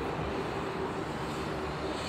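Kobe Municipal Subway train approaching on open track, a steady running noise of wheels on rail with a faint steady hum in it.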